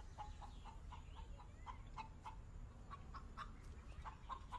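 Chickens clucking softly, a steady string of short, quiet clucks.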